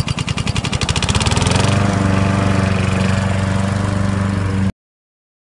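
Husqvarna self-propelled lawn mower's small petrol engine running just after starting: its firing beats speed up over the first two seconds and settle into a steady run. The sound cuts off suddenly near the end.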